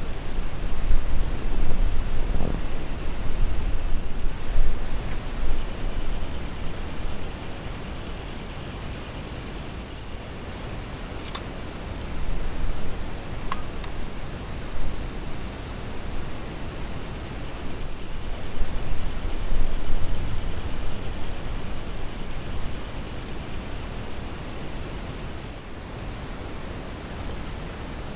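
Wind gusting over the microphone with a low, uneven rumble, under a steady high-pitched chirring of insects such as crickets. Two small clicks come about halfway through.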